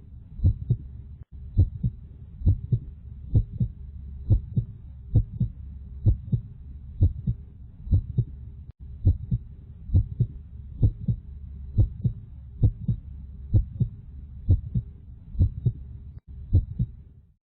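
Heartbeat, a steady double thump (lub-dub) about once a second over a low hum, fading out just before the end.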